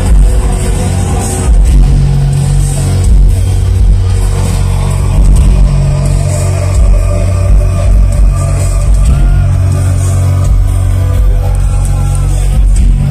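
Loud live band music heard from the audience, with a heavy, booming bass that swells and dips every second or two under held tones.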